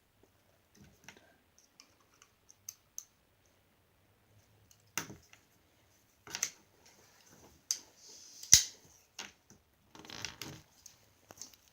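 ZT-0550 folding knife being handled and worked on: scattered light metallic clicks and taps, with a few louder sharp clicks in the second half, the loudest about two thirds of the way through.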